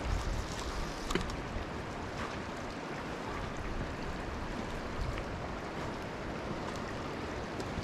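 Steady rushing of a fast-flowing river current, with a faint click about a second in.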